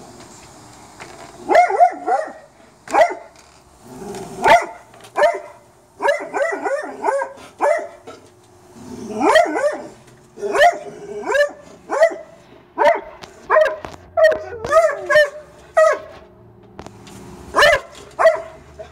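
Dog barking over and over, some barks coming in quick runs, agitated by a raccoon it has found.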